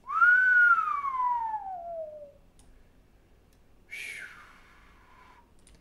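A person whistling one long note that rises briefly and then glides steadily downward. About four seconds in comes a shorter, breathy falling whistle.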